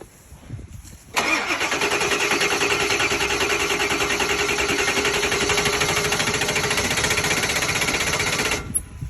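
Ford F-350 pickup's starter cranking the engine for about seven seconds, a fast even pulsing with a steady whine, then cutting off abruptly. The engine does not catch: a no-start.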